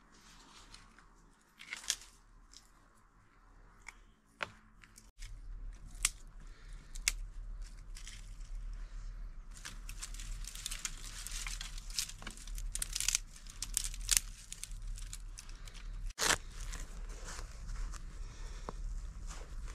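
Dry twigs and brush crackling, snapping and rustling as they are handled and laid into a stone fire ring, busy from about five seconds in. Before that, a few light clicks of stones being set; near the end, rustling as white tinder is pulled from a small pouch.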